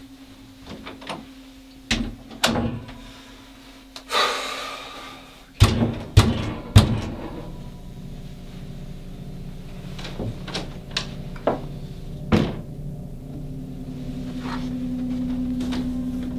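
Knocks and bangs on a wooden door: scattered sharp raps, a swishing rush about four seconds in, then three heavy bangs in quick succession, with a few more knocks later. A low drone comes in behind them and swells near the end.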